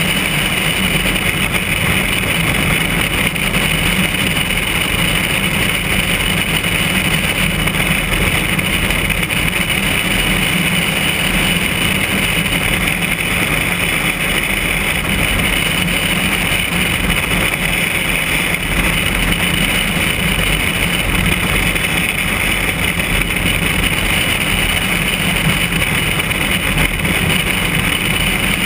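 Single-engine piston light airplane in cruise flight: a steady drone of engine and propeller with air rushing past, heard from a camera mounted outside under the wing.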